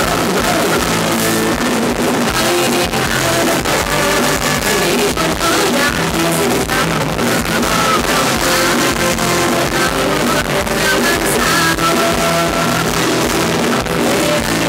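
Live Thai ramwong dance band playing loud, steady dance music, with a man singing into a microphone over it.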